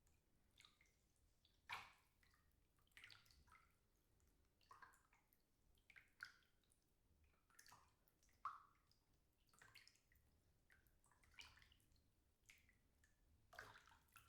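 Faint water moving in a bathtub: soft, irregular small splashes and drips, roughly one every second.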